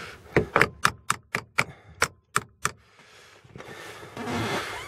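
Hammer tapping a loosened car-door lock striker plate, about ten sharp metal knocks at roughly four a second. The striker is being knocked up and inward so that a sagging door will latch.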